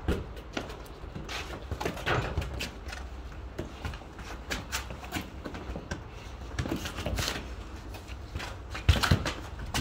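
Scuffing footsteps and light taps of a football being dribbled on paving slabs, a run of scattered short knocks over a low steady rumble, with one sharp loud knock near the end.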